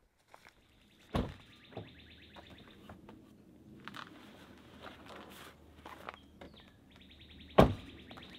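A bird calling in a fast, dry trill, in two long stretches. A loud thump about a second in, and a louder one near the end as the pickup truck's door is shut.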